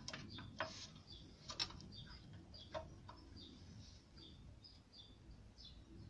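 Faint metallic clicks of a rusty moped drive chain and its split link being handled and worked loose by fingers, a few in the first three seconds, with faint bird chirps in the background.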